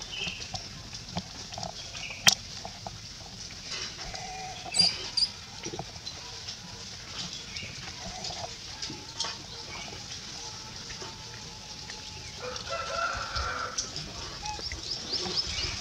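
Outdoor ambience with scattered short animal and bird calls, including a longer call near the end, and a few sharp clicks.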